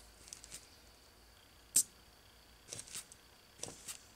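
A few faint, sharp metal clicks and taps of a small screwdriver working the inlet needle's metering lever on a Tillotson HS chainsaw carburetor, which is leaking down fast under a pressure test. The loudest click comes a little under two seconds in.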